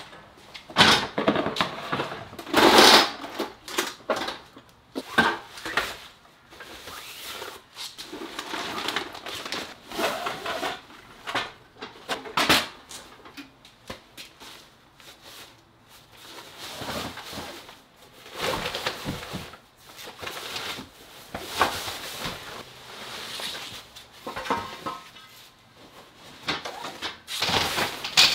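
Camping gear being handled by hand: irregular rustles of fabric gear bags with knocks and thumps as items are lifted off metal shelving and set down.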